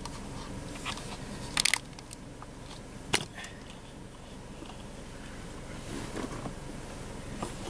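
Car engine idling, heard from inside the cabin as a steady low hum, with a quick cluster of sharp clicks about a second and a half in and another single click about three seconds in.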